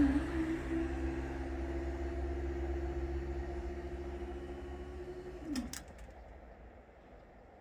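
Half-barrier level crossing barriers rising, their drive motor humming steadily for about five and a half seconds and then dropping in pitch as it stops, followed by two sharp clicks as the barriers reach the top. A low rumble fades away underneath.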